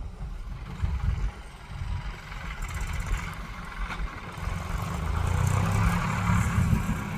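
Vehicle engine running as it drives closer, getting steadily louder toward the end.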